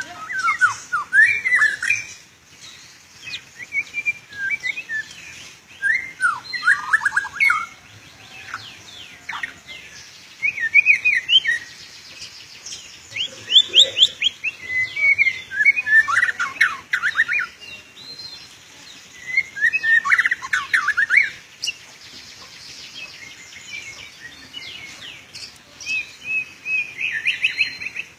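Oriental magpie-robin (kacer) singing a varied song of short phrases. The phrases are rapid, sweeping whistles and trills, packed with imitated phrases, and they come every few seconds with brief pauses between them.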